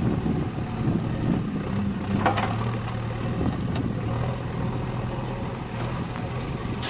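Heavy diesel engine running steadily at a low, even pitch, with a brief clank about two seconds in.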